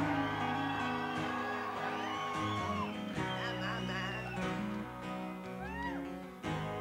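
Live rock band playing an acoustic arrangement: several strummed acoustic guitars over a bass guitar, with a lead voice singing over them.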